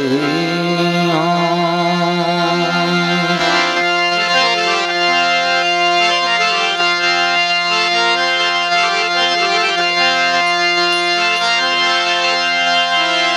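Harmonium playing a melody over a steady held drone in an instrumental break between the sung lines of a devotional bhajan. A singer's wavering held note dies away about a second in.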